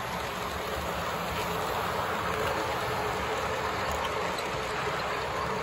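Model train running past on its track, the locomotive's electric motor and the cars' wheels making a steady whirring noise.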